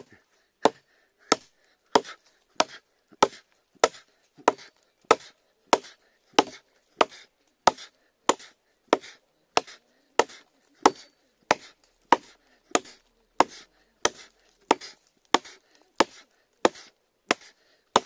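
Small hatchet chopping into a dry dead branch: about 28 sharp, evenly spaced blows, roughly three every two seconds.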